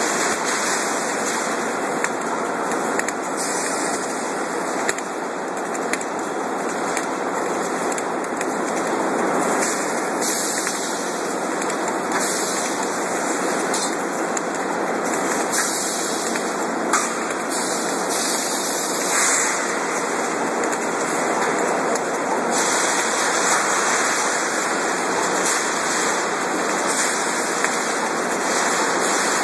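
Concrete spun pile cage welding machine welding wire onto the steel cage as it turns: a steady, hissing crackle of welding with machine noise, and a few faint clicks.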